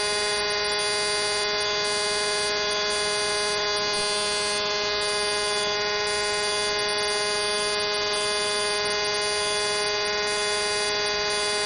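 Steady electrical hum and whine: a stack of unchanging tones over a light hiss, with no rise, fall or rhythm.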